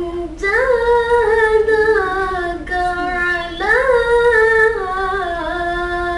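A boy reciting the Quran in the melodic tajwid style: long held, ornamented notes in two phrases, the first starting about half a second in and the second just before four seconds in, each opening with a rise in pitch and then stepping slowly down.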